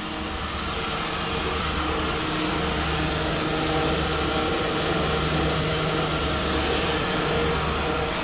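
Steady drone and rushing hiss of a fuel dispenser pumping diesel into a truck's tank, swelling slightly in the first couple of seconds and then holding even.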